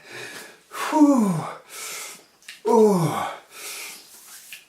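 A man moaning in pain from the burn of a ghost pepper: two long moans falling in pitch, with heavy breaths before, between and after them.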